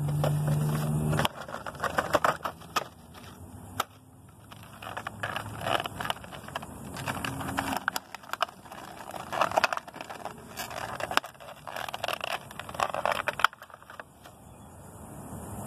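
Cardboard window box and clear plastic tray of a vinyl toy figure being opened by hand: irregular crinkling, crackling and scraping of plastic and cardboard, in bursts with short pauses. A steady low hum sounds in the first second or so, then stops.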